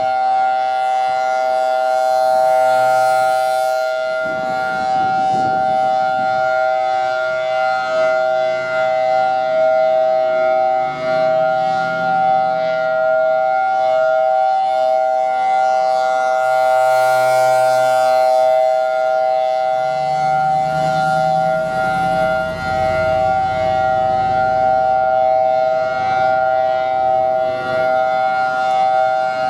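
Federal Signal Thunderbolt 1003 outdoor warning siren sounding a steady alert: a loud, unbroken chord of two close pitches that holds level without rising or falling, swelling and fading slightly in loudness as the rotating siren head sweeps.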